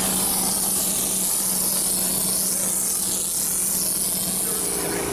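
Compressed-air spray gun of an IMER Koine 35 pump-mixer spraying cement mortar: a steady hiss of air and material, with a steady low hum of the machine underneath. The hum changes to a different, higher set of steady tones near the end.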